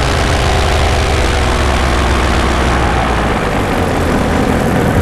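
Paramotor engine and propeller running steadily at cruise in low flight.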